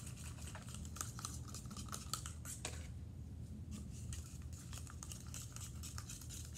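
Plastic spoon stirring and scraping against the inside of a small plastic cup, mixing white glue and paint, as a quick run of small clicks and scrapes over a low steady hum.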